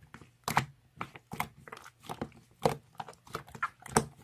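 A string of about a dozen short, sharp clicks and taps close to the microphone, irregularly spaced.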